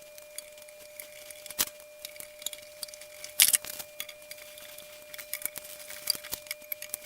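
Light metallic clicks and clinks of hand tools and screws at work, with a louder knock about a second and a half in and a brief sharper clatter about three and a half seconds in, over a faint steady hum.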